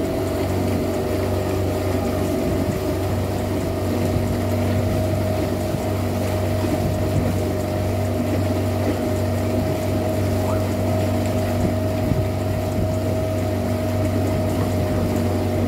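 A boat's engine running steadily at an even speed, its pitch unchanging.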